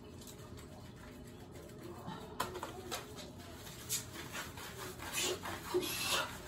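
Hands scrubbing shampoo lather into a wet dog's curly coat: soft wet rubbing and squishing, with quick scratchy strokes that grow busier after about two seconds. A few brief voice-like sounds come near the end.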